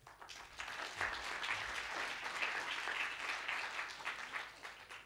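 Audience applauding: the clapping swells over the first second, holds, then thins out and stops abruptly at the end.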